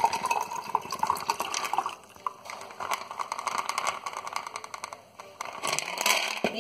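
Liquid poured from a bottle into a stemless glass, the filling tone rising in pitch as the glass fills over the first two seconds, then a quieter trickle, with a louder splashing pour near the end.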